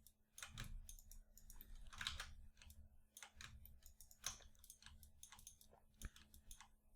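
Faint, irregular clicking of a computer mouse and keyboard as vertices are selected and deleted in 3D modelling software.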